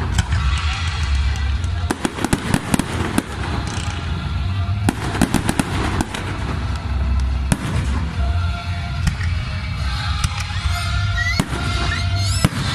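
Fireworks display: repeated sharp bangs and crackling of bursting shells, with rising whistles near the end.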